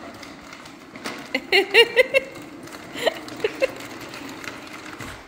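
A baby's short squeals and babbles over the steady rolling of a plastic toy push car's wheels across a hard floor, with a few light clicks and rattles.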